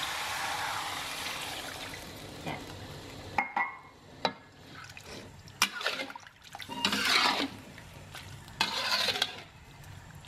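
Water pouring from a dipper into a hot wok of sautéed spice paste and tripe, a steady pour for the first three seconds or so. Then a metal spatula stirring in the wok, with clinks on the metal and the liquid sloshing and scraping.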